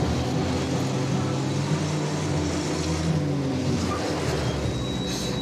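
Old cargo truck's engine running as the truck drives along: a low steady drone that shifts a little in pitch.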